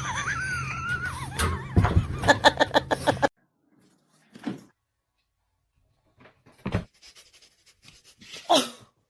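A dog's wavering high-pitched whine over a run of quick clicks and taps, which stops abruptly a little after three seconds. Then a few scattered short sounds, and a brief falling cry near the end.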